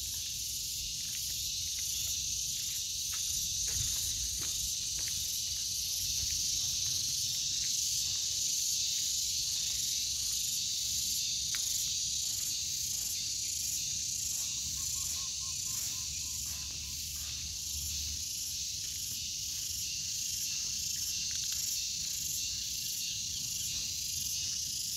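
Steady, shrill insect chorus outdoors: a constant high hiss with a fast, even pulsing edge.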